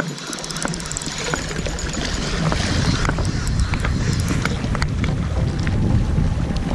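Wind buffeting the microphone, a low rumble that swells about half a second in and stays strong, with scattered light clicks over it.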